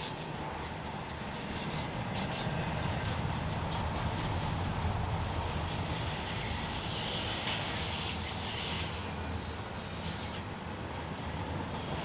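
Norfolk Southern freight train rolling by with a steady low rumble. Wheels squeal on the rail in thin high tones through the second half.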